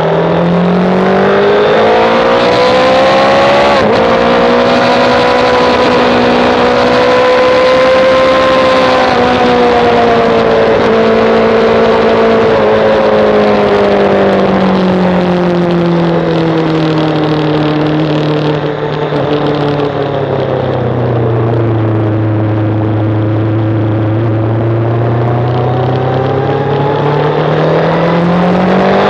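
Sportbike engine at speed, heard from on board: the revs climb over the first few seconds, hold high, then fall slowly through the middle, stay low for a few seconds and climb again near the end.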